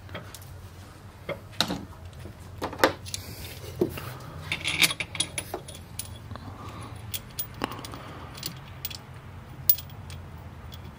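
Scattered light metallic clinks and taps of tools and engine parts being handled during a Hemi V8 camshaft swap, over a low steady hum.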